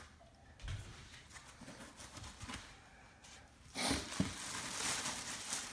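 Packaging being handled during an unboxing: quiet rustles and small knocks, then from nearly four seconds in a louder crinkling and tearing of packing material with a couple of knocks.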